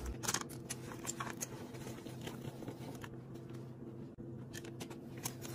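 Hand-cranked rotary drum cheese grater shredding a block of cheese: faint, irregular scraping and clicking as the drum is turned.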